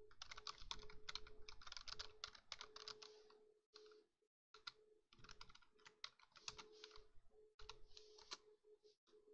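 Quiet typing on a computer keyboard: quick runs of keystrokes for the first few seconds, a brief pause, then more scattered keystrokes.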